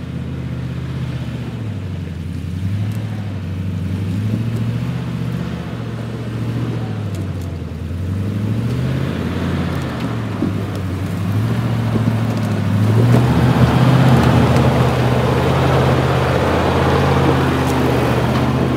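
A Nissan GQ Patrol 4WD's engine working at low revs as it crawls up a steep, loose, rocky hill climb, the revs rising and falling repeatedly. About two-thirds of the way through it gets louder as the vehicle comes close, with rougher noise over the engine from tyres on loose rock.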